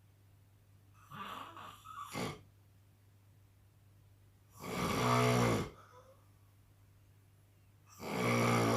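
An elderly man snoring in his sleep: a weaker, broken breath about a second in, then two loud snores of about a second each, roughly three and a half seconds apart.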